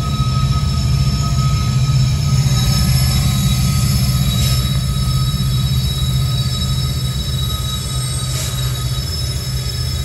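Union Pacific freight train's six-axle diesel-electric locomotives (GE AC45CCTE, GE ES44AC, EMD SD70AH) rolling slowly past at close range: a steady low engine drone with a thin, steady high-pitched whine above it.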